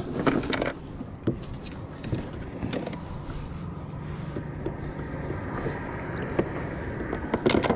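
A few light clicks of metal forceps and fishing gear being handled while a hook is worked out of a small fish's mouth, over a steady low rumble.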